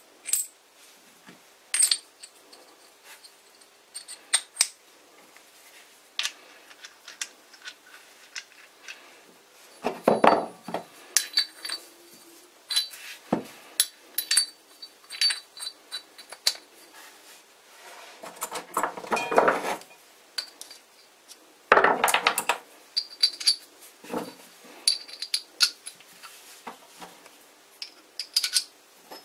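Steel parts of a Metabo Futuro keyless drill chuck clinking and knocking together as the chuck is reassembled by hand: many light metallic clicks, with a few longer scrapes of metal sliding on metal.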